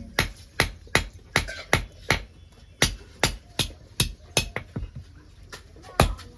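Blacksmith's hammer striking metal on an anvil in a steady rhythm, about two to three sharp blows a second, pausing briefly twice.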